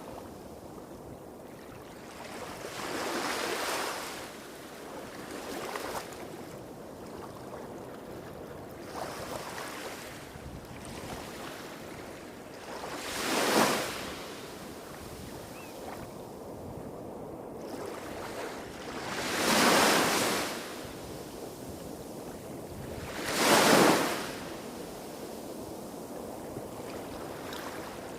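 Small waves breaking and washing up on a shore, a few separate swells of hiss rising and falling, three of them louder, over a steady low rumble from surf hitting rocks further off.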